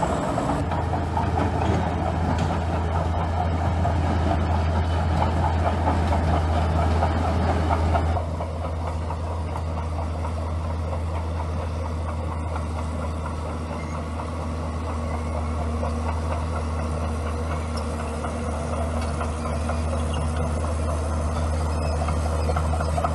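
A bulldozer's diesel engine runs steadily, louder and busier for the first third, then settles to a quieter, even run about eight seconds in.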